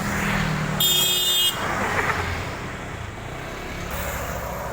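A large road vehicle, most likely a bus, passes with its engine humming. About a second in there is one short, loud, steady horn toot lasting under a second. The rush of the passing vehicle follows and fades into steady traffic noise.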